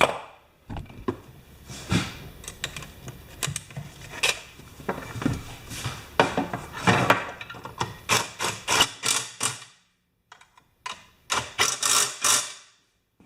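Hands working on the compressor's parts: irregular clicks and knocks of plastic and metal being handled and fitted together, with two quick runs of taps near the end separated by a brief pause.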